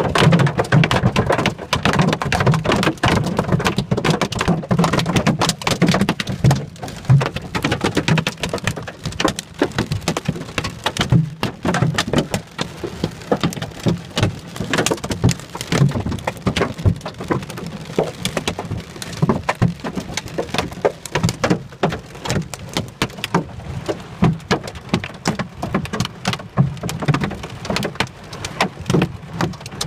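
Hail pelting a car's roof and windscreen, heard from inside the car: a dense, irregular clatter of countless small impacts over a steady hiss.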